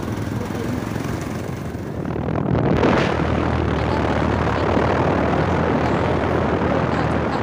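Wind rushing over the microphone with a vehicle's engine running steadily underneath, as when riding along a road; the rush and hum grow louder about two and a half seconds in.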